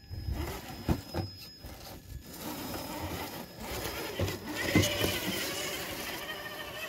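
Traxxas TRX4 RC crawler's electric motor and geared drivetrain whining as it drives over dirt, steady from about three seconds in. A few sharp knocks and scrapes come in the first two seconds as the truck works its way out of the rut.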